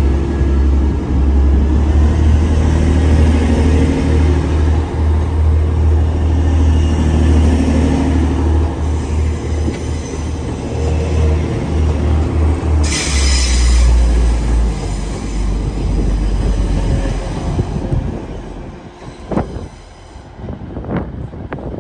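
A train running through a station: a loud, steady low rumble, with a brief high hiss about thirteen seconds in. The rumble dies away near the end, leaving a few sharp clicks.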